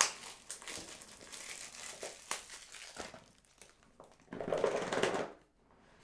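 Plastic shrink-wrap on a phone box crinkling and rustling as it is cut and peeled off, with scattered crackles and clicks and a louder rush of crinkling about four seconds in.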